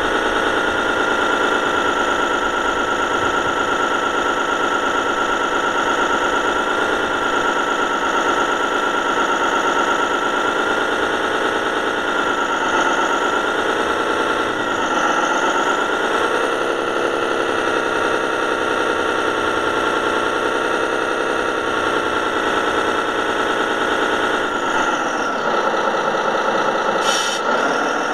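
Radio-controlled model truck running with a steady, many-toned drone whose pitch dips and comes back up several times as it slows and speeds up. A brief high squeak sounds near the end.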